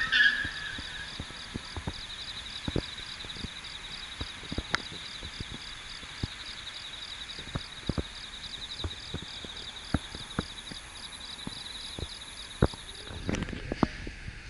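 Insects chirping at night in a steady, high, rapidly pulsing chorus, with scattered light clicks and a short rising squeak at the start. The chorus cuts off near the end.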